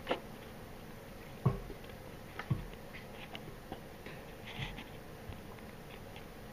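A few scattered light clicks and taps, about five or six spread unevenly, over faint steady room hiss.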